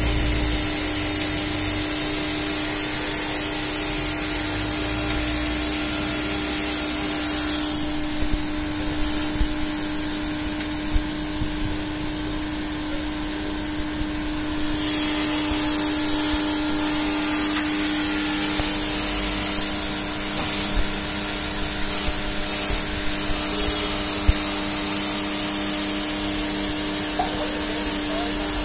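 Pressurized water jet of a roof-cleaning machine spraying onto corrugated roof sheets: a steady, continuous hiss with a constant hum beneath it. The hiss turns duller for several seconds in the middle.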